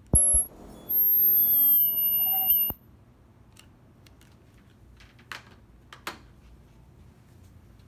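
Hand-held ultrasonic welder (Asahi QP-01) spot-welding polyester ironer guide tape: after a couple of clicks it gives a very high-pitched whine with a slightly falling lower tone for just under two seconds, cut off by a click. Two light knocks follow a few seconds later.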